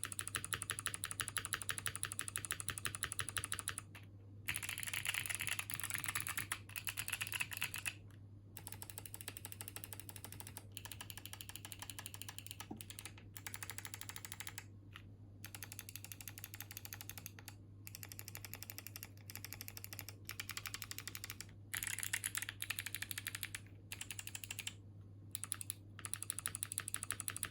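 Fast typing on a Neo65 mechanical keyboard with Kailh Box Jade clicky switches, GMK Metropolis keycaps and an FR4 plate: dense runs of sharp, crisp clicks lasting a few seconds, broken by short pauses. A steady low hum sits underneath.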